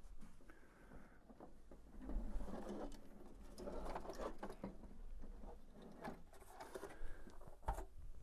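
Shuffling footsteps on carpet and rustling handling noise, with a few light knocks.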